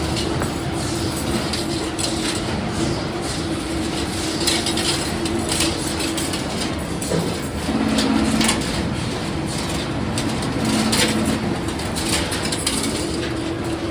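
CNC wire bending and welding machine running: a steady motor hum that drops to a lower pitch about eight seconds in, with scattered clicks and clatter of the mechanism.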